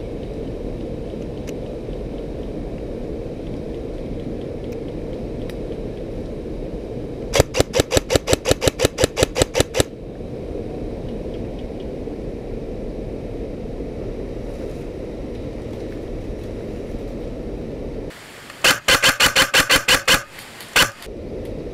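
Airsoft electric rifle firing rapid strings of shots, a run of about a dozen and a half sharp cracks over two and a half seconds, then a second shorter run near the end. A steady rumbling noise runs underneath throughout.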